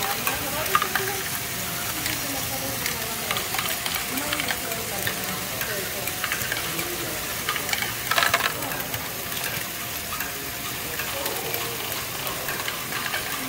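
LEGO Great Ball Contraption modules running: a steady, dense clatter of small plastic balls rolling and dropping through LEGO chain conveyors, lifters and wheels. A louder burst of clattering comes about eight seconds in.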